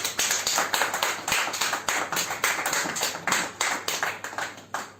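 Audience applauding at the end of a song, dense clapping that thins out near the end.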